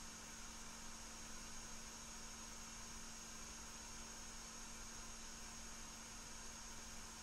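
Steady low electrical hum with a faint even hiss: quiet room tone, with no other sound.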